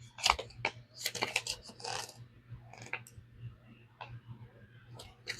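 Packaging being handled: paper and cardboard rustling with small clicks and taps, busiest in the first two seconds and sparse after that.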